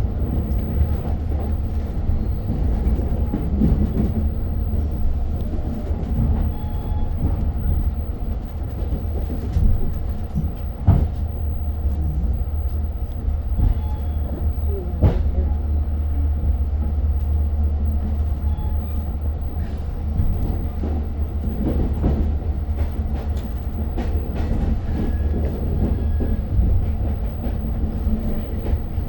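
Long Island Rail Road commuter train running, heard from inside the passenger car: a steady low rumble with scattered clicks and knocks from the wheels on the rails.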